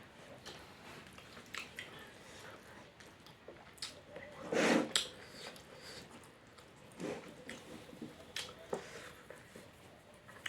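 Close-up eating sounds: chewing, with small irregular mouth clicks and smacks, and one louder, longer mouth sound about halfway through.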